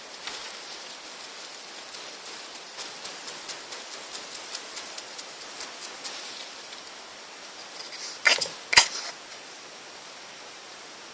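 A pet hedgehog making a run of quick small ticking sounds, then sneezing twice, sharply, about half a second apart, a little past eight seconds in.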